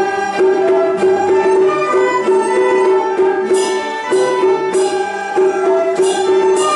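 Chinese traditional instrumental ensemble of bowed and plucked strings playing a Hakka folk tune, a continuous melody with sustained notes.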